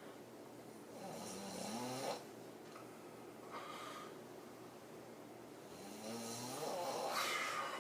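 A woman snoring hard through an open mouth while lying on her back in deep sleep: two long snores about five seconds apart, each rising slightly in pitch and cutting off suddenly, with a softer breath between them.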